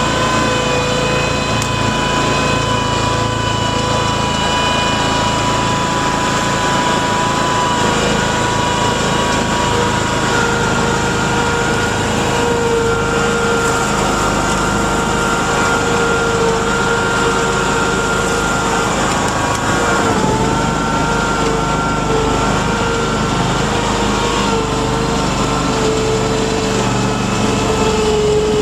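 Mudd-Ox 8x8 amphibious ATV on Adair tracks under way, heard from on board: its engine and drivetrain run steadily with a high whine. The pitch dips briefly about two thirds of the way through and again near the end.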